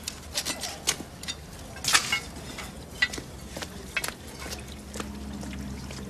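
Scattered light clicks and knocks over a faint low hum.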